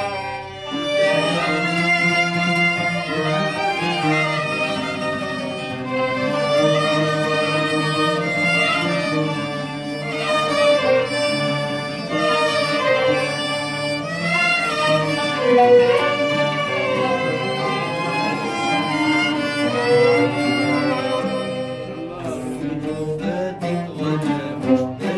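A small Arabic takht ensemble playing: a violin carries a sliding, ornamented melody over two ouds and a qanun plucking along. Over the last few seconds the plucked strings come more to the fore.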